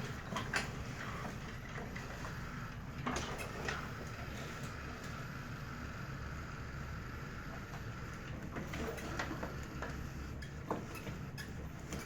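Roomba robot vacuum's drive motors running steadily at slow speed, a low hum with a thin steady whine, with scattered clicks and knocks as it moves about.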